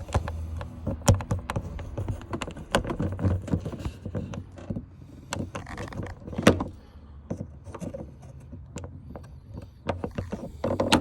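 Screwdriver prying at the clip of a pickup's rear swing-out window latch arm: irregular clicks, scrapes and knocks of the parts being worked loose, the sharpest a snap about six and a half seconds in.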